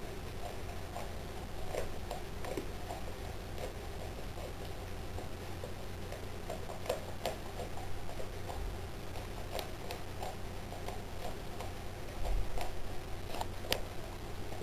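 Boxer dog chewing a whole raw fish: irregular clicks and crunches of teeth on bone, a few sharper ones near the end.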